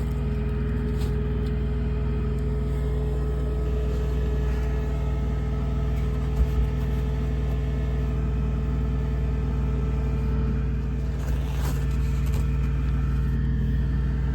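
A truck APU's small engine running steadily, a constant low drone with a brief knock about halfway through.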